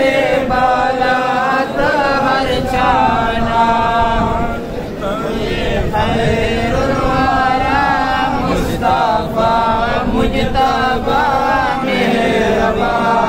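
Devotional chanting by men's voices: a melodic line of long held, wavering notes that breaks briefly every few seconds.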